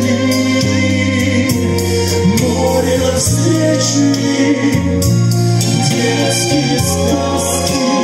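Male vocal quartet singing in harmony over low held bass notes that change about once a second.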